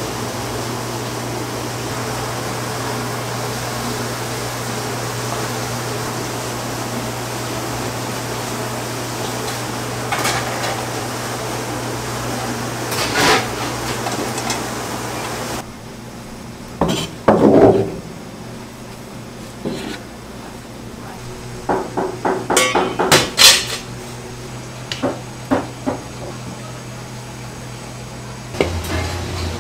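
Stainless steel mixing bowls and a spatula working in a kitchen, over a steady hum. First come scraping swells as food is stirred in the bowl. Then, about halfway in, sharp metal clanks, and a quick run of clinks and knocks as steel bowls and utensils are handled.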